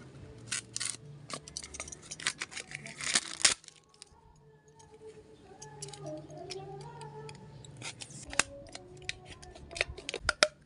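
Utility knife blade cutting through a thin plastic soda bottle: sharp crackling clicks of the blade and the plastic, loudest about three seconds in, a short pause, then more cutting near the end.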